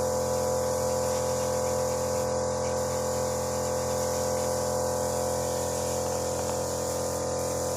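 A steady, unbroken electric hum with many overtones and a faint hiss above it, unchanging throughout.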